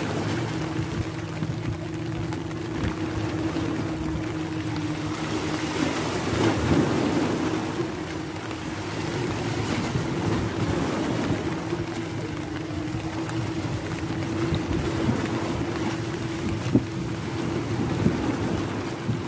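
Steady wash of sea waves on breakwater rocks, with rain and wind on the microphone, under a constant low drone that holds one pitch throughout.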